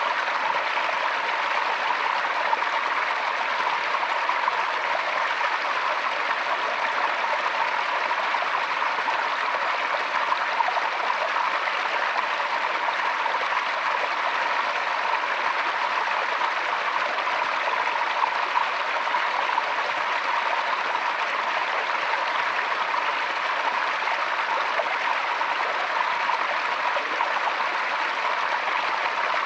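Forest stream running over rocks: a steady, even rush and babble of water, unchanging throughout.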